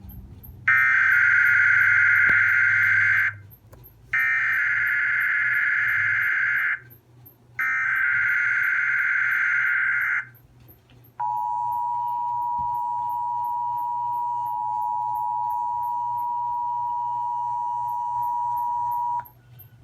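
Emergency Alert System header: three bursts of SAME digital data, each about two and a half seconds, encoding a Tornado Watch. They are followed by the two-tone attention signal, held steady for about eight seconds.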